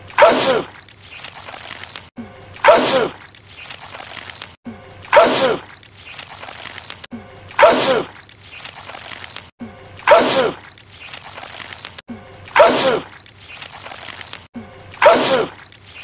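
A man's sneeze, the same sneeze looped over and over: seven loud sneezes about two and a half seconds apart, each starting suddenly and falling in pitch.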